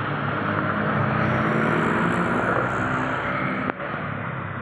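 Steady city street traffic: cars and motorcycles running and passing on the road.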